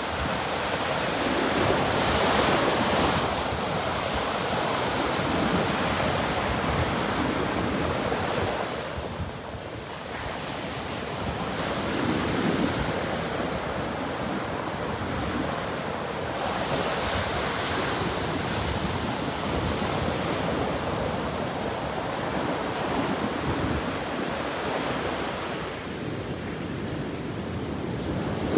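Ocean surf breaking and washing up a sandy beach: a steady rush that swells and eases as each set of waves comes in, dropping back for a moment about nine seconds in and again near the end.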